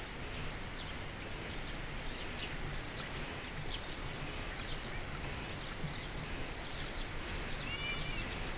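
Footsteps of someone walking across a bare dirt lawn over a steady outdoor city hum. Short high chirps come and go throughout, with a brief double chirp near the end.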